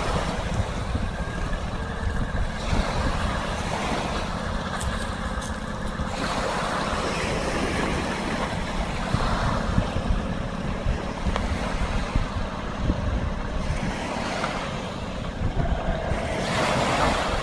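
Six-wheeled amphibious vehicle's engine running as it drives through the shallows, with waves washing on the shore and wind buffeting the microphone.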